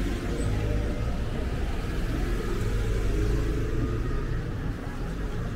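Steady low rumble of city street traffic, with cars passing.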